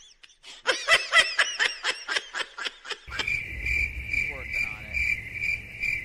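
A person giggling in quick, high-pitched bursts. From about three seconds in this gives way to a cricket chirping steadily, about three chirps a second, over a low rumble.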